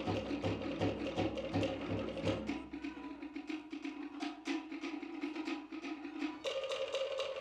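Cook Islands drum ensemble playing: rapid, even beats on wooden slit drums (pate) over a regular bass-drum thump about three times a second. The bass drops out about two and a half seconds in, and the slit drums carry on alone.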